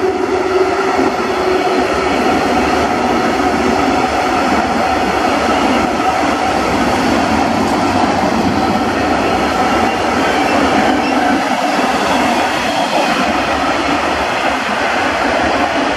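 Freight train of loaded tank wagons rolling past at speed: a steady, loud noise of steel wheels on the rails, with thin whining tones running through it.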